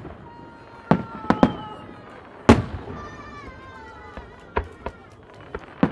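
Fireworks shells bursting overhead in sharp bangs, about seven in all, the loudest about halfway through. Between the bangs, faint whistling tones fall slowly in pitch.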